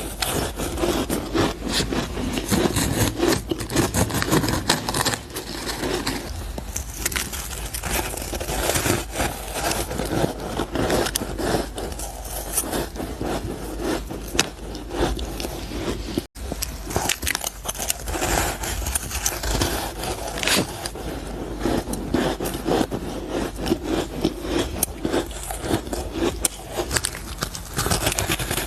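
Close-miked crunching and chewing of ice: a dense, continuous crackle of teeth breaking powdery frost and crisp block ice.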